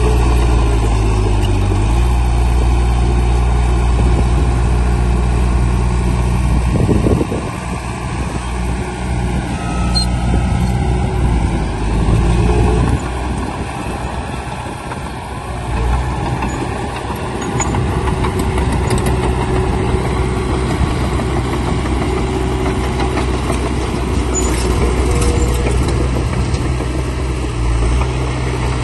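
Heavy diesel engine of earthmoving machinery running, with a steady low pitch that gives way to rougher, shifting engine noise about a quarter of the way through, then settles back to the steady pitch just past halfway.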